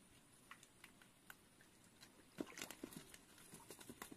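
Near silence, broken by a few faint clicks and taps, with a small cluster of them about two and a half seconds in.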